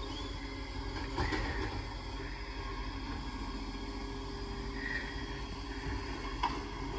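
Distant garbage truck's diesel engine running with a steady low hum. Two short sharp knocks sound, about a second in and near the end.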